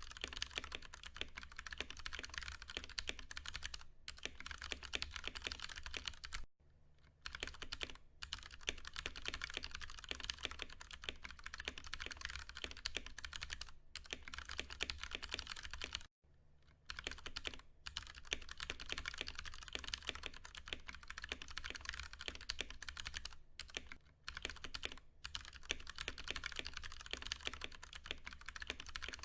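Fast, continuous typing on a Ducky One 2 Mini mechanical keyboard with Cherry MX Brown tactile switches: a dense run of key presses that stops briefly twice, about a quarter of the way in and a little past halfway.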